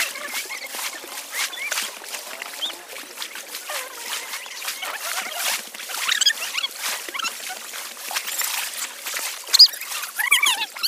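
Small waves washing and splashing in shallow sea water at the shoreline, with a few short high-pitched cries, the loudest near the end.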